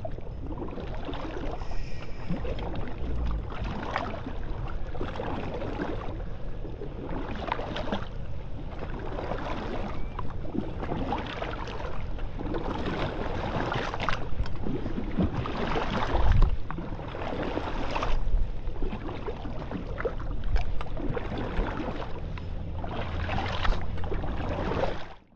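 River water sloshing and rushing, swelling every two to three seconds, with a low wind rumble on the microphone.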